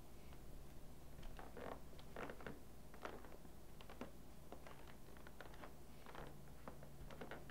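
Soft, irregular rustles and light footsteps of someone creeping slowly through a quiet room, clothing brushing as they move, over a low steady hum of room tone.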